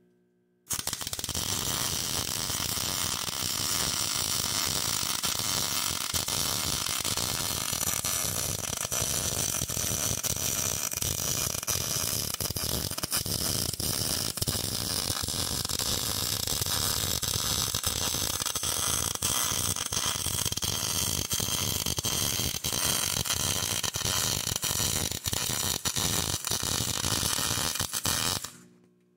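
MIG welder arc crackling steadily as one continuous bead is run on quarter-inch steel plate. It starts abruptly about a second in and cuts off just before the end.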